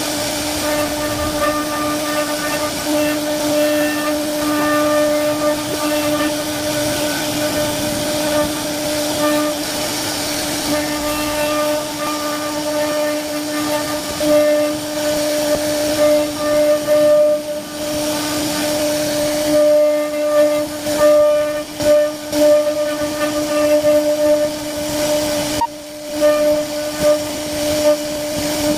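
CNC router spindle running at a steady high whine while the bit carves wood, with a hiss of cutting underneath. In the second half the sound surges and dips unevenly as the cut changes, with a short drop near the end.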